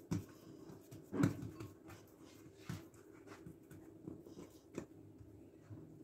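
Soft taps and pats of hands handling squares of dough on a wooden board, a few small knocks, the loudest about a second in, over a faint steady hum.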